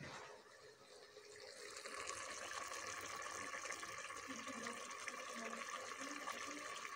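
Mutton frying in masala in an open aluminium pressure-cooker pot, a steady sizzle that comes up louder about two seconds in. This is the bhuna stage, browning the meat before water is added for gravy.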